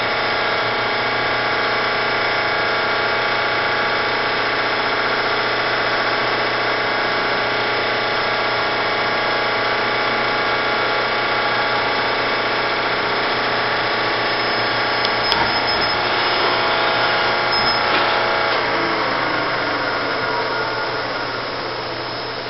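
Siber Hegner RB-1 CNC bed mill running, its spindle drive giving a steady hum and whine made of many even tones. A click comes about 15 s in and another about 18 s in, after which the sound slowly dies away as the spindle winds down.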